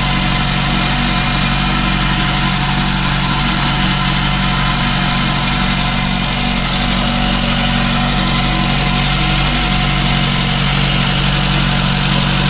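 Freshly overhauled VAZ-21083 1.5-litre four-cylinder engine idling steadily just after its first start.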